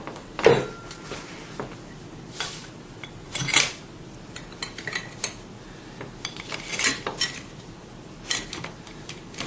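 Metal parts of an oil-free vacuum pump clinking and knocking against each other as it is reassembled: a dozen or so irregular sharp clinks, the loudest about half a second in.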